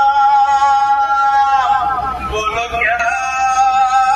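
A man's voice holding long, high sung notes, played loud through a DJ sound system, with a short break and change of pitch about two seconds in before the next long note.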